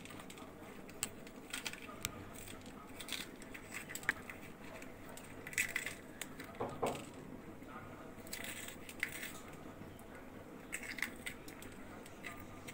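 A metal spoon scraping the seeds out of slit green chillies over a plate: faint, irregular scrapes and small clicks.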